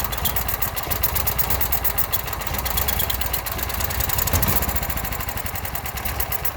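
Small portable generator's engine running steadily at a constant speed.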